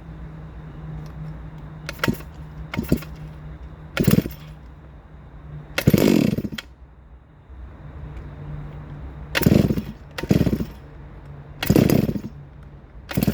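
Rebuilt, ported Neo-Tec NS872 two-stroke chainsaw on its first start after the rebuild: about eight short bursts of engine noise, each under a second, with the longest about six seconds in. A steady low hum runs underneath.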